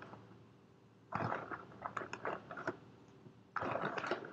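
Plastic snack bag crackling as a hand rummages inside it, in two bursts of short crackles: one about a second in and another near the end.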